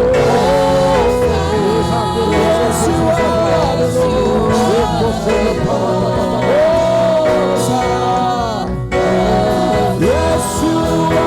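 Gospel worship song: choir and lead voices singing long held, sliding notes over instrumental accompaniment.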